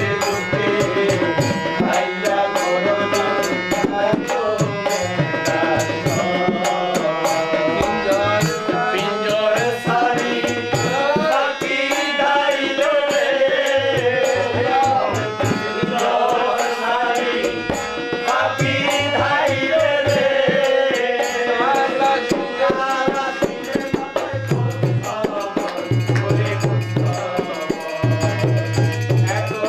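Harmonium playing a sustained melody under a man's singing, with a hand drum keeping the rhythm, in a Bengali Sufi devotional song. Deep drum strokes come through more strongly near the end.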